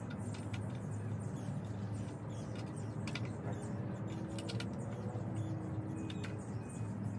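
Outdoor ambience: a steady low rumble with faint, scattered high clicks and chirps, and a short high chirp about six seconds in.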